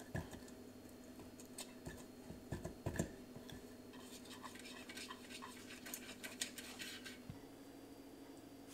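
Silicone pastry brush working around the inside of a metal muffin tin's cups: a few knocks of the brush against the tin, the loudest about three seconds in, then a run of quick scratchy brushing strokes.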